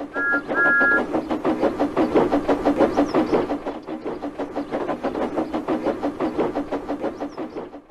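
Steam tank engine sounding two short two-tone whistle blasts, then chuffing along at a quick, even beat that cuts off suddenly near the end.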